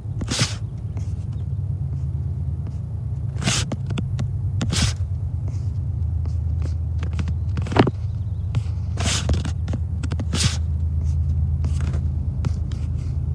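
Low, steady rumble of an approaching diesel freight train's locomotives, not yet in sight, with a few sharp clicks scattered through it.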